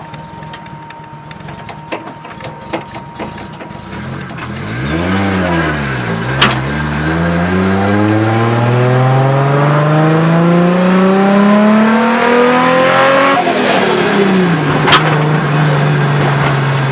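Turbocharged RB20DET inline-six under full throttle at about 10 psi of boost, its note climbing steadily for about seven seconds with a faint rising turbo whistle. Near the end the throttle closes and the note drops, with the turbo fluttering because no blow-off valve is hooked up, then the engine settles to a lower steady note.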